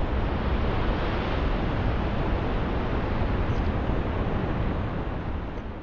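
Ocean surf breaking, a steady rushing wash with a heavy low rumble, fading out near the end.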